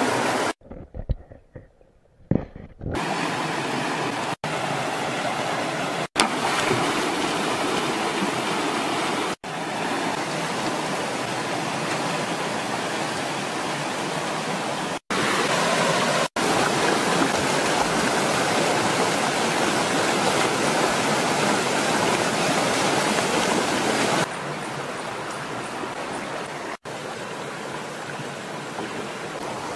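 Rushing water of a rocky stream and its rapids: a steady, even rush, broken by several abrupt edit cuts. It drops almost to quiet for a couple of seconds near the start and is a little softer near the end.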